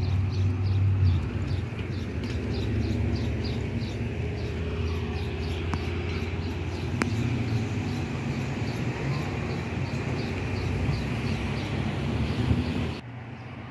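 Street traffic rumbling low and steady, loudest at the start, with a fast, even series of high chirps, about three a second, over it; the sound drops away suddenly near the end.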